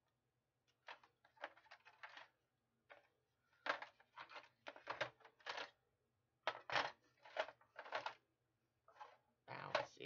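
Fire alarm devices clattering and knocking against each other and a plastic crate as it is rummaged through, in irregular bursts of clicks and clunks.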